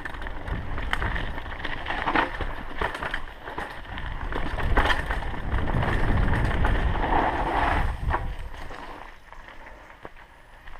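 Mountain bike riding down a dirt trail: wind rush on a chest-mounted camera microphone, tyres rumbling over the ground and the bike rattling on bumps. The noise dies down in the last couple of seconds.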